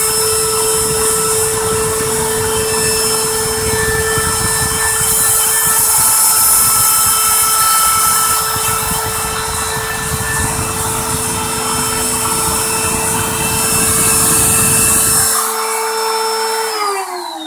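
A Harbor Freight router, serving as a CNC spindle, runs at a steady whine over a rough grinding noise as its bit carves foam. The grinding stops about two seconds before the end. The router is then switched off, and its whine falls as the motor spins down.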